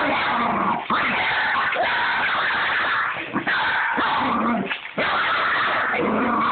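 Pug barking and growling in long, agitated stretches, with short breaks about a second in and again around four to five seconds in.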